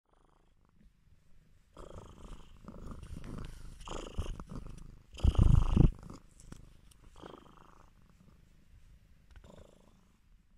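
Abyssinian cat purring while being stroked, loudest for about a second midway, then fading.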